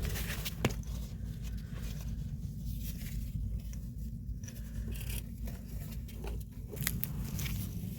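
Rustling and scraping handling noises, with a couple of sharp clicks, over a steady low hum.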